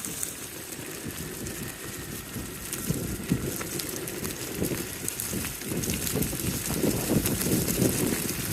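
Wheels of an all-terrain electric skateboard rolling over a dirt bush track, with low rumble and small ticks from the ground and wind buffeting the microphone, getting louder toward the end.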